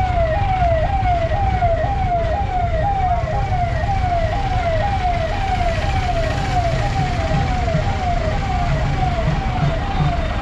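Ambulance siren, a rapid wail that sweeps down in pitch and jumps back up about two and a half times a second without a break. Under it runs the low rumble of idling vehicle engines.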